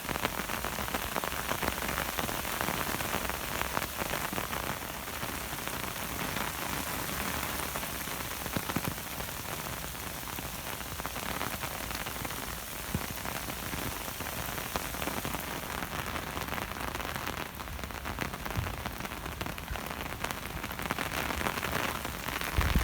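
Heavy rain pouring down: a steady, even hiss of rain with many small drop ticks.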